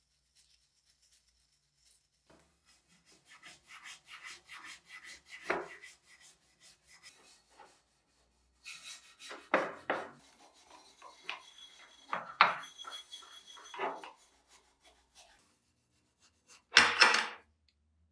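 Small wire brush scrubbing the cast-iron body of an antique iron, a dry rasping scrape in quick back-and-forth strokes. The strokes come in bouts with short pauses, starting about two seconds in, and there is a short louder burst near the end.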